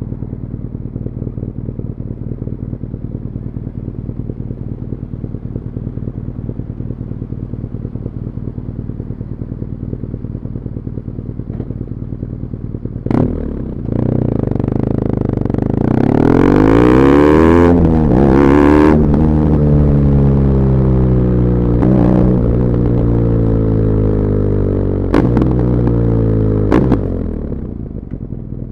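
BMW R nineT Urban GS's 1170 cc boxer twin, on its stock muffler, idling steadily for about thirteen seconds. It then pulls away and accelerates, the engine note rising and dropping back at each of several upshifts, and eases to a lower, steadier note near the end.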